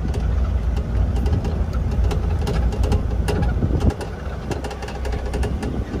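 Ride inside a moving vehicle: a steady low engine and road rumble with frequent rattles and knocks. The deepest rumble eases a little about four seconds in.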